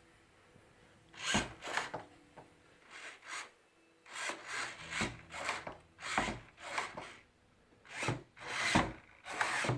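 Servos of a radio-control Hurricane model plane whirring in short bursts, about a dozen in a row with brief pauses between them, as the retracts and ailerons are worked back and forth.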